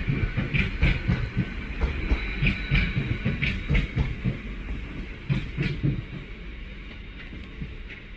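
Passenger train passing on the main line, its wheels clattering in an uneven run of knocks over the rails and junction pointwork with a low rumble. The clatter thins out and fades over the last two seconds as the train draws away.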